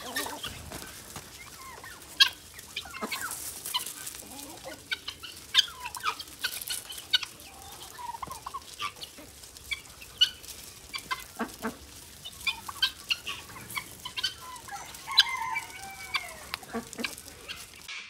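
A mixed flock of guinea fowl, turkeys, chickens and ducks feeding on gravel: clucking and short calls, with many short sharp ticks throughout.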